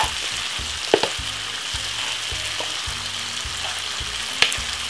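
Meatballs and vegetables sizzling steadily in a frying pan, with a sharp click about a second in and another near the end.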